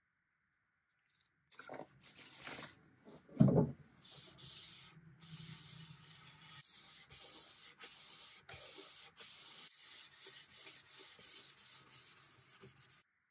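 A cloth wet with mineral spirits being wiped back and forth over an oak veneer panel: a run of rubbing strokes, about one and a half a second, that stop suddenly near the end. One thump about three and a half seconds in, just before the wiping starts.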